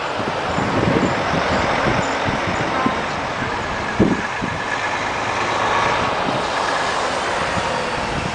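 Heavy trucks with tipper trailers and a car driving past close by, led by a red Volvo tractor unit. Their diesel engines and tyre noise swell and fade as each one passes, with a brief thump about four seconds in.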